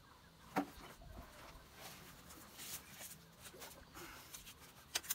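Faint handling noise with two sharp clicks, one about half a second in and one near the end, from a clear plastic bottle being worked in the hands.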